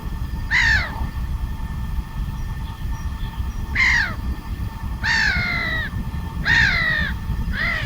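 A crow cawing five times, each harsh call falling in pitch, over a steady low rumble.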